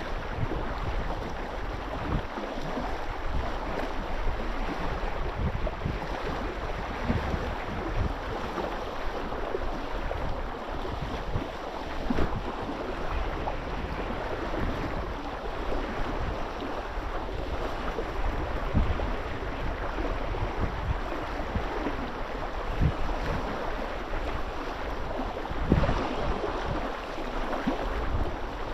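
Wind buffeting the microphone over water lapping and sloshing, with scattered short knocks or splashes; the loudest come about 12 seconds in and near the end.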